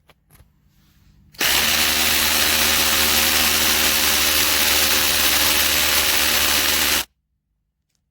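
Cordless drill drilling a hole, running at a steady speed for about five and a half seconds, then stopping suddenly. A few faint clicks come just before it starts.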